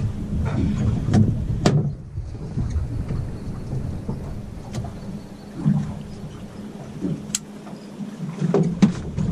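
Wind buffeting the microphone over a steady low hum from the boat's motor, with a few sharp clicks and knocks from fishing gear and the landing net being handled on the boat.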